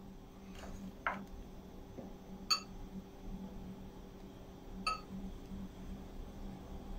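Hands laying sliced sucuk on cheese-topped pide dough: a couple of soft clicks, then two sharp ringing clinks about two and a half and five seconds in, over a steady low hum.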